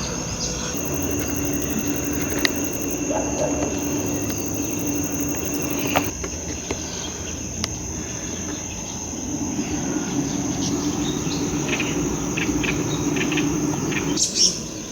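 Insects droning steadily in one continuous high-pitched tone, with a few short bird chirps near the end.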